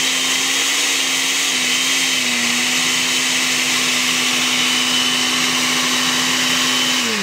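Countertop blender running, churning a thick mix of ham, bread, peaches and milk; its motor pitch wavers slightly in the first two seconds, then holds steady. It is switched off right at the end, the motor pitch starting to fall as it winds down.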